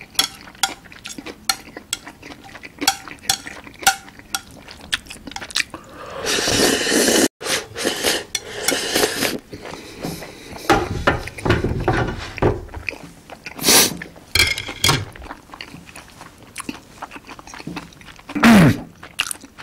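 Chopsticks tapping and scraping against a ceramic plate in quick, irregular clicks, gathering up the last noodles. After about six seconds come longer noisy stretches of slurping the leftover sauce straight from the tilted plate, with eating noises and a couple of loud clatters later on.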